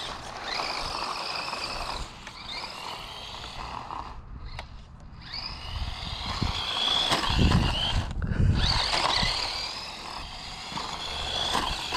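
DEERC 9310 1/18-scale electric RC truck on a high-speed run, its motor and gears whining and the pitch rising and falling with the throttle. The whine fades out about four seconds in and comes back at about six, with bursts of low rumble around seven to nine seconds.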